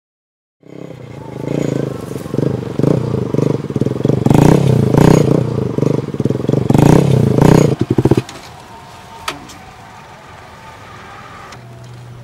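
Sport motorcycle engine running and revving as the bike rides up and pulls to a stop. The engine stutters and cuts off about eight seconds in, leaving only faint background with a single click.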